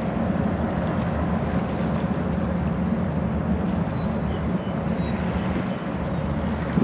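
Boeing Jetfoil passing at speed on its foils: a steady low drone under a broad rush of water and wind.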